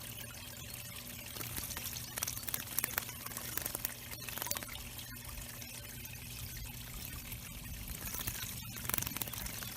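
Water pouring and trickling steadily into a backyard bird pond, with a faint steady low hum underneath.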